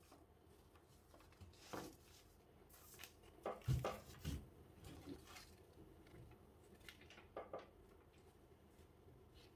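Quiet handling noises from unpacking a mechanical keyboard and its cardboard box: soft rustles and light knocks, with a cluster of stronger low knocks about halfway through as the wrapped keyboard is lifted out and set down, and a couple of light taps near the end.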